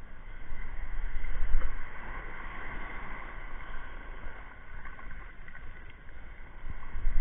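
Sea water washing and splashing, with wind gusting on the microphone in low rumbling surges, strongest about a second and a half in and again near the end.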